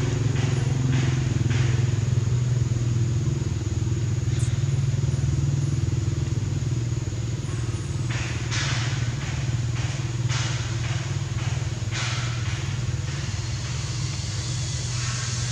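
An engine running steadily at idle, an even low hum. A few brief hissy rustles sound around the middle and near the end.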